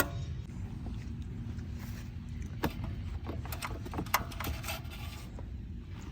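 A steady low rumble, with a sharp click right at the start and a run of clicks and knocks between about two and a half and five seconds in.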